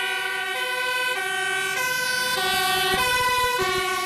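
Fire engine's two-tone siren, alternating steadily between a high and a low note about every 0.6 seconds.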